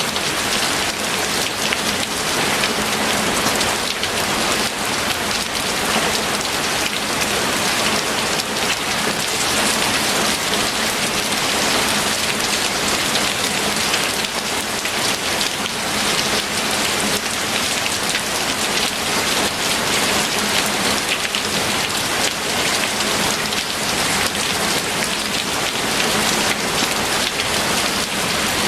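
Steady, heavy rain falling and pattering on a surface, an even hiss of drops throughout.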